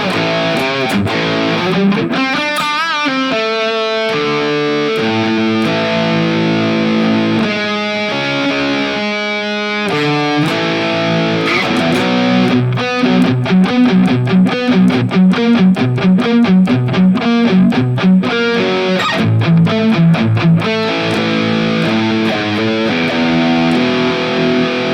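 High-gain distorted electric guitar played through a Bogner amp model on a digital guitar modeling unit. Held notes and chords give way, about halfway through, to fast chugging riffs.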